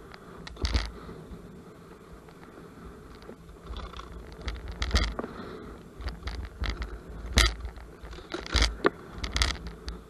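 An electric scooter riding over a bumpy sand track: several sharp knocks and rattles from the scooter jolting over ruts, most of them in the second half, over a steady low rumble of wind on the microphone.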